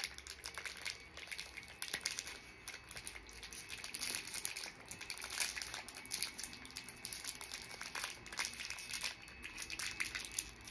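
Plastic wrapper of a pack of sandwich crackers crinkling as it is twisted and pulled open by hand, with quick irregular crackles throughout.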